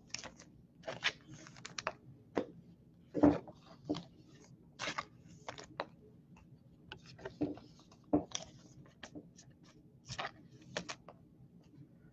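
Hands handling baseball cards and a foil card-pack wrapper: irregular crinkles, rustles and short card clicks and taps.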